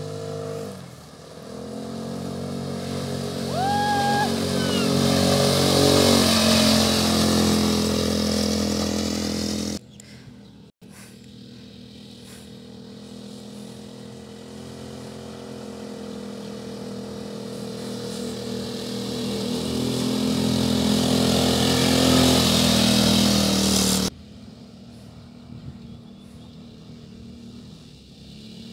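250cc ATV quad bike engines running as the bikes come up a dirt track, growing louder as they approach. The sound drops off suddenly about ten seconds in and again about four seconds before the end. There is a brief rising-and-falling whistle-like call about four seconds in.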